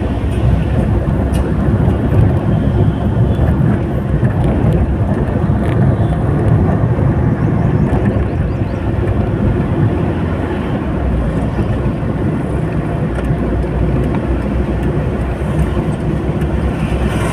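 Steady low rumble of road and wind noise from a moving vehicle, heard on board while driving along a highway.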